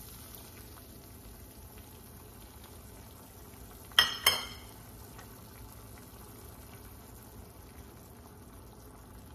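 Coconut-milk cream sauce simmering in a pan on the stove, a steady low hiss. Two sharp clinks about four seconds in.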